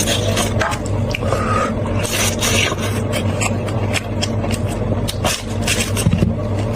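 Close-miked eating of spicy sheep shanks: chewing, with a stream of short clicks and scrapes over a steady low hum.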